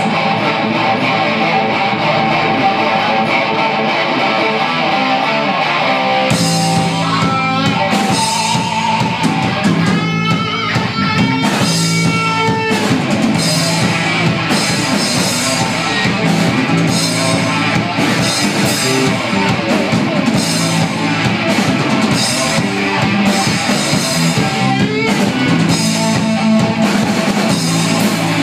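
Live rock band playing an instrumental passage on electric guitars and drum kit. The drums come in harder about six seconds in, and a lead line with bent, wavering notes stands out from about ten to thirteen seconds in.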